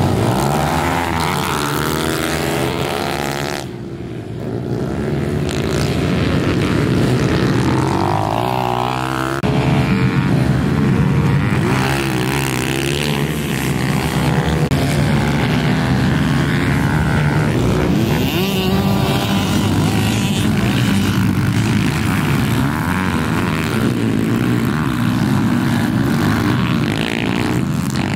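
Several pit bike engines revving hard, overlapping, their pitch climbing and dropping again and again through gear changes as the bikes accelerate and go past. The sound dips briefly about four seconds in.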